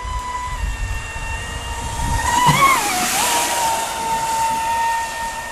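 Traxxas Spartan RC boat's brushless motor whining at speed. The pitch wavers and dips about two and a half seconds in as a rushing hiss of spray swells and fades.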